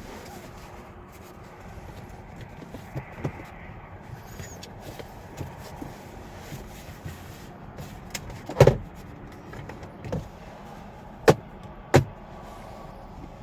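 A handful of knocks and sharp clicks from a car being handled, over a steady low background noise. The loudest knock comes a little past halfway, followed by two sharp clicks near the end.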